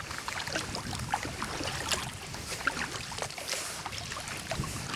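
Kayak paddling: water dripping and trickling off the paddle blades with small splashes, a steady scatter of little drips.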